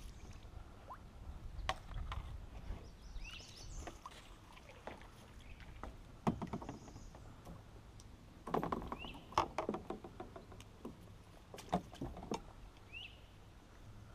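Paddling and gear handling in a kayak: scattered knocks and clatter against the hull, bunched in a few clusters, over a low rumble, with a few short rising chirps.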